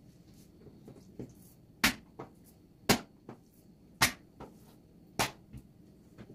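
Four sharp knocks about a second apart, each followed by a softer knock.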